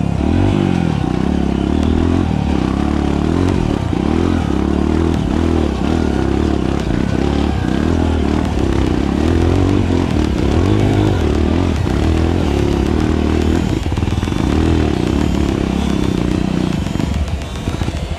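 Dirt bike engine ridden at low speed on a rough trail, its note rising and falling often as the throttle opens and closes, heard close up from the rider's camera.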